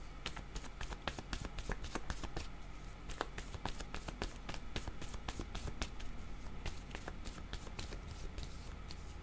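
A deck of worn paper divination cards shuffled by hand, a steady run of light, quick card clicks and flicks, several a second.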